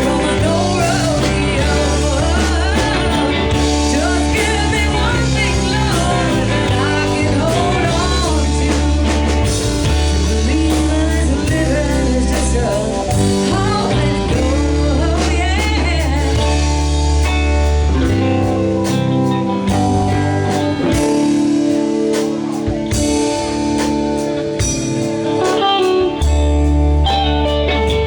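Live blues-rock band playing: a singer over electric guitar, a steady bass line and drum kit.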